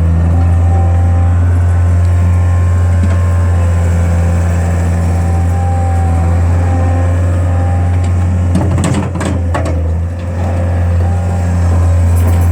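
Skid steer engine running steadily with a steady whine over it. A burst of clanking and rattling comes about nine seconds in, while the engine briefly drops.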